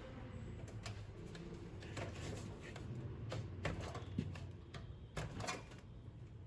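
Irregular clicks and light knocks from hands handling small computer parts while fitting a CPU cooling fan, over a low steady hum.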